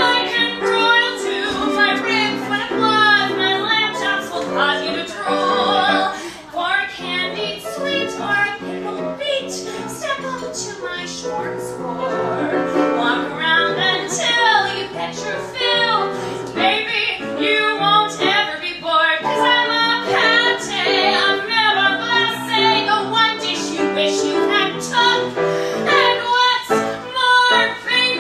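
Music: a woman singing a brassy show tune with instrumental accompaniment, the vocal line bending and sliding without clear words.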